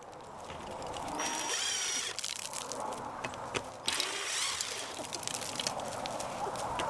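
A cordless drill running steadily, backing out the screws that hold the old feeder timer on, with a few clicks. Chickens call briefly a couple of times in the background.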